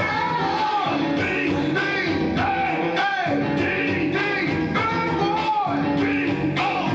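Rock-and-roll music with guitar and a singing voice.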